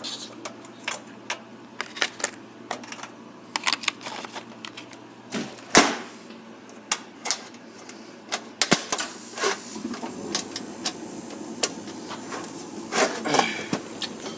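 Irregular clicks, clinks and knocks of metal parts and hand tools being handled, with one sharp knock about six seconds in.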